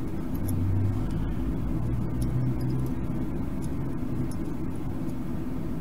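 A steady low rumble with a hum that comes and goes in the first few seconds, and a few faint light clicks as the soldering iron and LED legs touch the circuit board.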